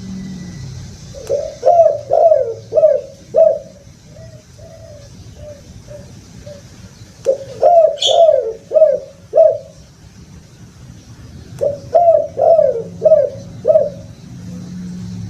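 Spotted dove (tekukur) cooing: three phrases of about six quick, falling coo notes each, roughly two seconds long, with softer coos between them.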